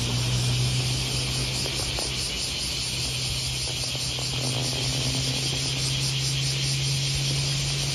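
Insects calling in a dense, steady, high buzzing chorus with a fast even pulse, over a low steady hum.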